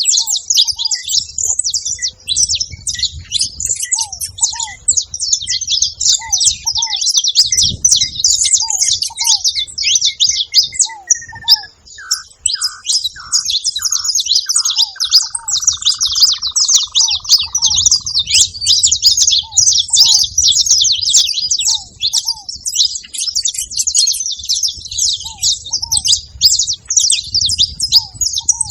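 A flock of saffron finches chirping together in a dense, continuous, overlapping chatter.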